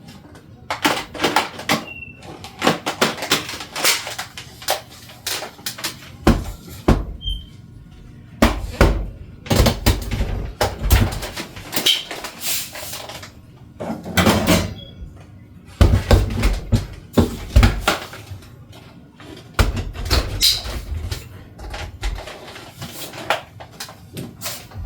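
Plastic parts of a cordless stick vacuum being handled and fitted together: a long run of irregular clicks, knocks and light thumps, with a few squeaks.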